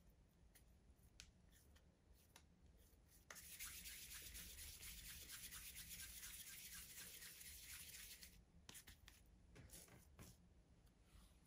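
Faint rubbing as a small ball of soft bread dough is rolled round and round between the palms, a rhythmic friction from about three seconds in that lasts roughly five seconds, with a few light taps and handling noises on the worktop around it.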